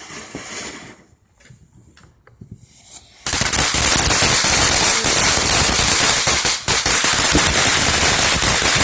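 Fireworks crackling. A few sharp pops, then about three seconds in a loud, dense run of rapid cracks starts suddenly and keeps going, like a string of firecrackers.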